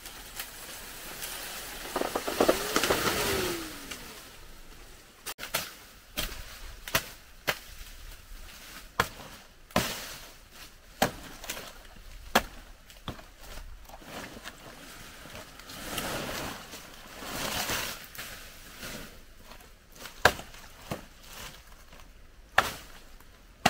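A blade chopping banana plant by hand: irregular sharp chops, several seconds apart at first and then closer together, with two longer rustling swishes in between.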